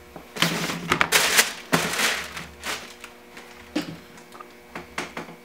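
Handling noise as sneakers and their packaging are moved about on a tabletop: dense rustling and crinkling in the first two seconds, then a few light knocks.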